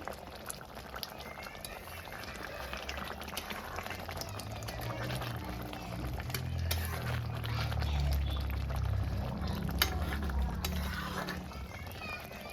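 Fish curry bubbling and crackling in a pan as it simmers, with a low rumble that swells in the middle and a sharp click near the end.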